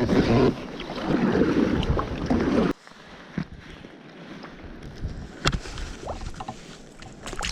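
Wind buffeting the microphone on a fishing kayak, with water noise. It cuts off sharply a little under three seconds in to a much quieter stretch with a few light knocks.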